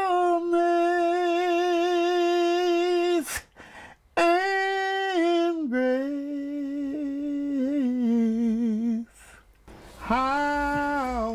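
A lone voice humming a slow, unaccompanied melody in long held notes with a gentle waver, in three phrases broken by short pauses; the second phrase steps down in pitch partway through.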